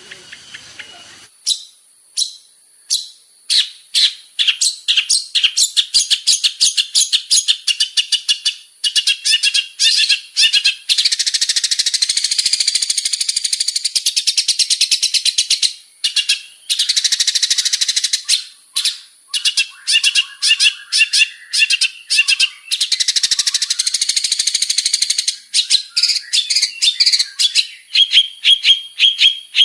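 Long-tailed shrike (cendet) singing a loud, varied song: runs of quick sharp notes, broken by two long unbroken warbling trills, ending in a string of evenly repeated notes.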